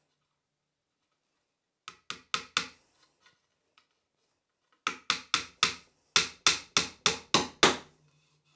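Hammer driving a finishing nail into pine: four light taps, growing louder, about two seconds in to start the nail, then after a pause a run of about ten firmer blows, three or four a second, in the second half.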